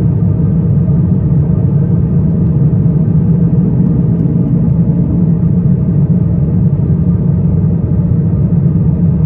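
Steady low rumble of a British Airways Airbus A350-1000, heard from inside the economy cabin.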